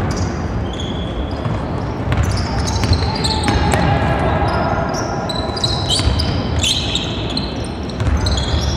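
Basketball play on a hardwood court: a ball being dribbled and sneakers squeaking on the floor, with a flurry of squeaks about six to seven seconds in.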